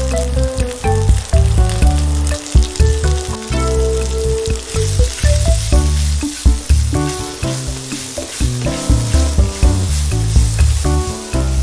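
Chopped green capsicum and peas sizzling in a non-stick frying pan as a spatula stirs them, with short clicks and scrapes of the spatula against the pan. The sizzle is stronger from about halfway through, and background music plays over it.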